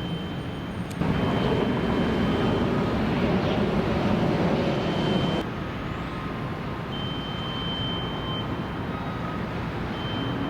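Steady outdoor noise of road traffic and construction machinery, louder for a few seconds starting about a second in and dropping back abruptly. A faint high steady tone comes and goes.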